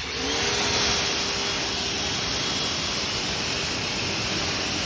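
Ryobi 2000 psi electric pressure washer running and spraying: its motor-driven pump hums at a steady pitch after rising quickly to speed at the start, under the loud, steady hiss of the water jet.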